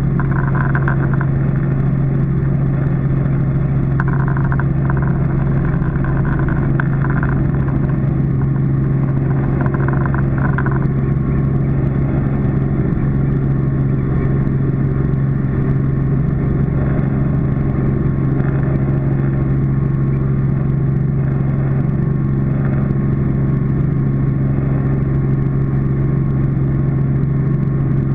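Robinson R44 helicopter heard from inside the cabin: the piston engine and rotors make a steady, loud drone over a strong, even low hum.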